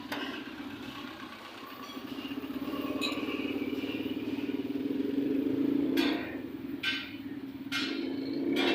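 A small engine, like a motorcycle's, idling steadily and growing louder after about two seconds. Near the end come four sharp metallic clinks of metal parts or tools being handled.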